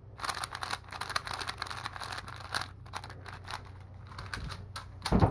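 A speedcube being turned quickly close to the microphone: a fast, continuous run of small plastic clacks as its layers turn and snap into line, with one louder clack near the end.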